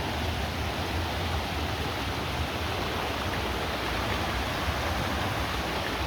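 River water rushing steadily, an even hiss with a low rumble underneath.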